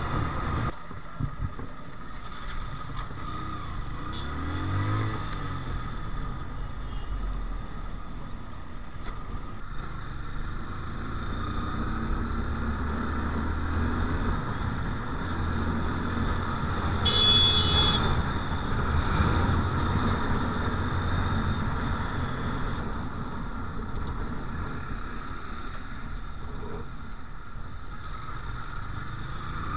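Motorcycle ride through city traffic: the bike's engine running under wind and road noise, with other vehicles passing close by. The sound changes abruptly a few times, and a brief high-pitched tone sounds about halfway through.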